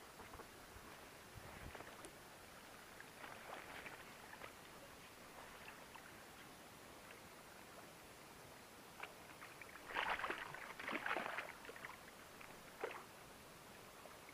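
Water sloshing and splashing close to an inflatable boat as a hooked wels catfish is played on a spinning rod, with scattered small clicks; the splashing is loudest about ten to eleven and a half seconds in, with a short burst near the end.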